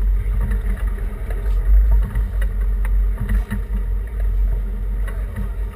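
Low, uneven rumble of a sportfishing boat's engines, with wind on the microphone.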